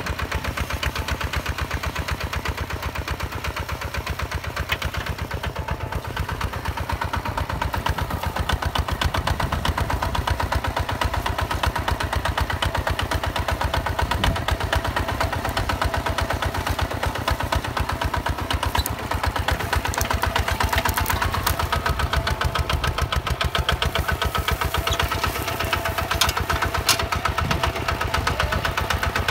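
Single-cylinder diesel engine of a Hinota HG Gold 155 DI two-wheel walking tractor running steadily under load as it pulls a disc plough through dry soil, with a fast, even firing beat.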